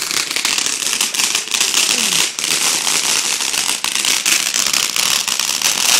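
Ground fountain firework spraying sparks, with a dense, steady crackle.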